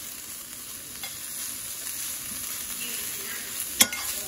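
Chopped bacon and sliced garlic sizzling in a frying pan as they are stirred, the bacon starting to render its fat. One sharp click near the end.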